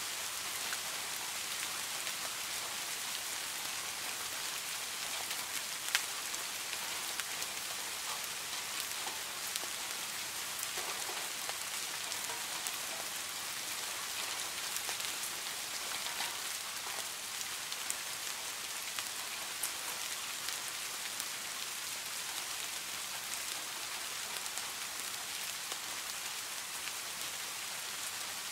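Steady rain falling on a pond's water surface: a constant even hiss sprinkled with many small drop ticks, with one sharper drip about six seconds in.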